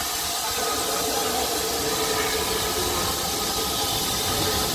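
Steam locomotive 35018 British India Line, a rebuilt Southern Railway Merchant Navy class Pacific, standing with steam hissing steadily from around its cylinders.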